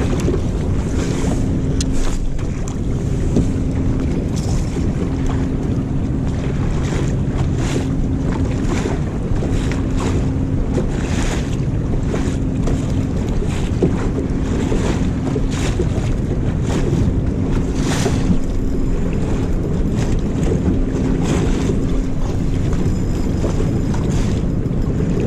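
Steady wind buffeting the microphone over the wash of choppy river water around the boat, with a faint low hum that comes and goes.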